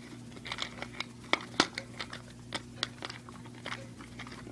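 Irregular small clicks and crinkles of plastic being handled as a toy remote controller is bent and worked out of its packaging.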